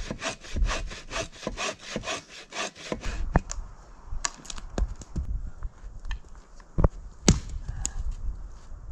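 Hand saw cutting through a firewood log with quick back-and-forth strokes, about four a second, stopping about three seconds in. Then a few sharp knocks as the cut wood is handled and set down, the loudest two close together about seven seconds in.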